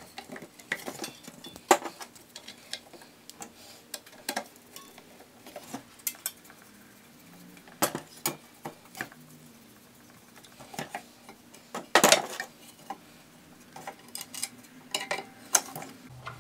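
Small metal screws and a screwdriver clicking and scraping against the plastic wheel housing of a Gryphon C-40 band saw as screws are fitted and driven in by hand. The clicks and knocks come at irregular intervals, with a louder clatter about twelve seconds in.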